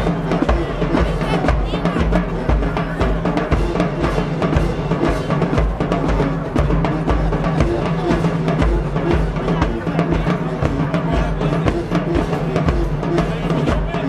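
Live high school marching band playing a tune, with bass drum hits driving the beat and busy drumline strokes under sustained low horn notes.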